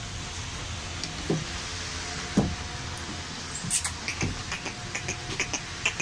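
A goat's hooves knocking a few times on a wooden slatted floor over a steady background hum, with light rapid clicks in the second half.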